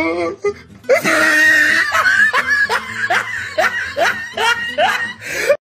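A person laughing hard in a long run of short rising 'ha' bursts, about two or three a second. The laughter starts about a second in and cuts off suddenly near the end.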